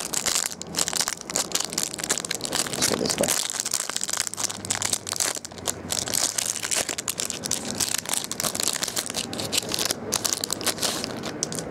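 Clear plastic wrapper crinkling and crackling in many quick rustles as hands work it off a sealed pack of trading cards.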